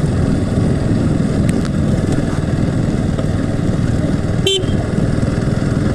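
Motorcycle being ridden, its engine and road noise steady throughout, with one short horn toot about four and a half seconds in.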